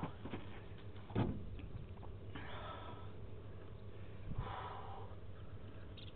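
An angler breathing hard close to the microphone while fighting a hooked salmon: short breaths about every two seconds over a low steady hum, with a single knock about a second in.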